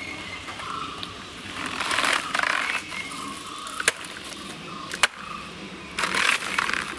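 A knife hacking into and peeling apart the fibrous, layered sheaths of a banana plant's trunk. Bursts of tearing and rustling, with two sharp snaps about four and five seconds in.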